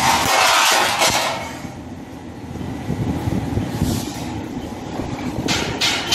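Long steel strips scraping as they slide across the steel bed of a sheet-metal guillotine shear, over the steady low rumble of the running machine. Near the end, a quick run of sharp metallic clanks, about two a second.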